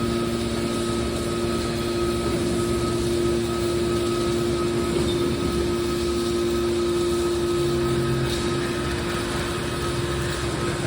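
Drum baler press running steadily: an even machine hum, the drone of its electric motor and hydraulic pump, with a couple of fixed tones held throughout.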